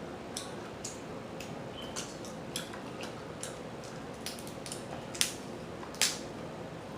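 Boiled seafood shells being cracked and picked apart by hand: a run of sharp clicks and snaps, the two loudest a little past five and six seconds in.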